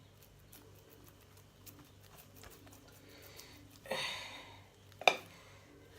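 Kitchen handling sounds: scattered light taps and clicks, a short scraping rustle about four seconds in, and a sharp knock just after five seconds, the loudest of them.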